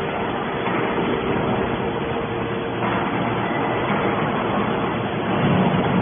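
TCM hydraulic scrap metal baler running: its hydraulic power unit gives a steady mechanical noise with a faint constant tone.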